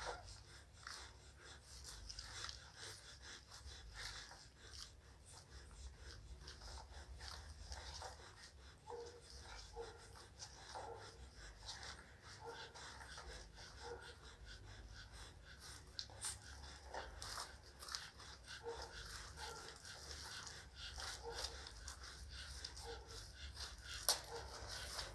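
Pit bull puppies suckling at their mother's teats: faint wet smacking clicks and brief small squeaks, with a dog's panting breaths.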